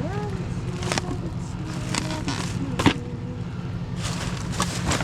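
Steady low rumble of a vehicle running, with several sharp clicks and knocks, the loudest about three seconds in and a cluster near the end.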